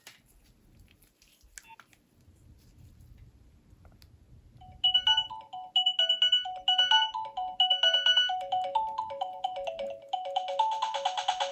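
A few faint clicks in near quiet. Then, about four and a half seconds in, a Nokia 3300b ringtone starts: a quick melody of short synthesized notes.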